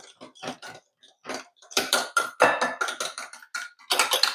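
Wire whisk of a handheld milk frother, worked by hand, clicking and scraping against a ceramic bowl while stirring a thin coconut-milk agar-agar mixture: quick uneven strokes, several a second, busiest about two seconds in and again near the end.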